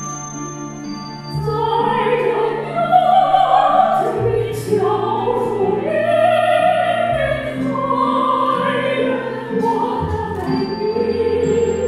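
Two women singing a serenade as a duet into microphones, over sustained accompaniment chords whose bass note changes every few seconds; the voices come in about a second and a half in.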